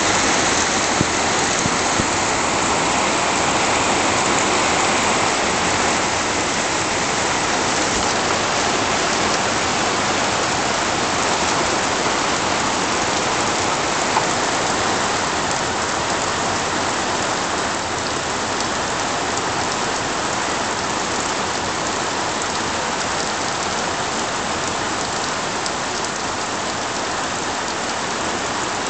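Heavy rain falling steadily on leafy vegetation and wet ground: a constant, dense hiss with scattered drip ticks, easing slightly over the first half.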